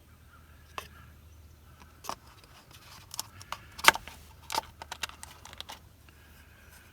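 Scattered light clicks and taps from the Sprinter's oil filter cap and element being handled while new O-rings are fitted. The taps are busiest and loudest around the middle, over a faint steady low hum.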